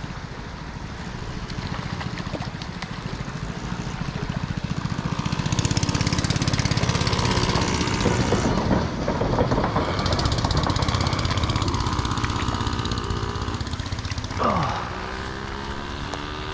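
Dirt bike engines approaching and passing, growing louder over several seconds and revving up and down. Near the end one engine's pitch drops sharply, and then the engines carry on more quietly.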